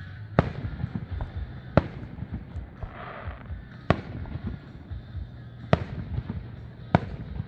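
Aerial fireworks shells bursting: five loud booms, one every second or two, with smaller crackling pops in between.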